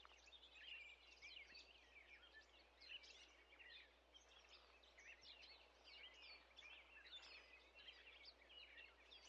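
Faint birdsong: many quick, overlapping chirps and twitters from small birds.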